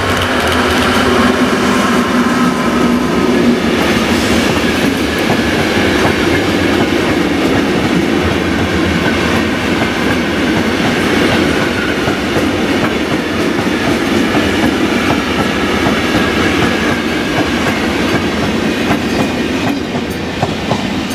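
Class 203 diesel-hydraulic locomotive passing close by, its engine drone fading within the first couple of seconds. A long rake of covered hopper wagons follows, rolling by with a steady rumble and clickety-clack of wheels over the rail joints, which eases off near the end as the train clears.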